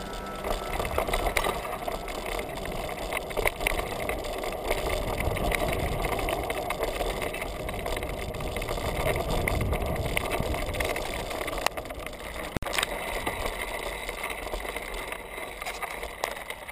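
Mountain bike ridden along a dirt singletrack trail: tyres rolling over dirt and dry leaves with a continual clatter and rattle over bumps, and one sharper knock late on.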